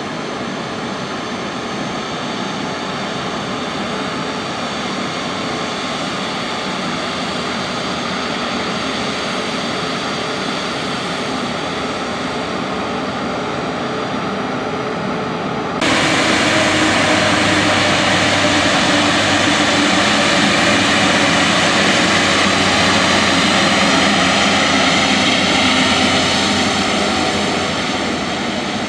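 Airbus A350-900's Rolls-Royce Trent XWB jet engines running at taxi power: a steady rush with several fixed whining tones. About halfway through, the sound jumps abruptly louder and brighter, then eases off near the end.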